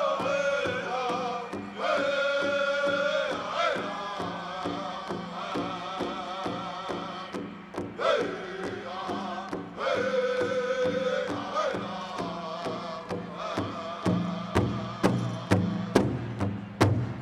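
Pow wow drum group singing a high-pitched chant with sliding, falling phrases over a steady beat on a large drum. The drumbeats become louder and more accented in the last few seconds.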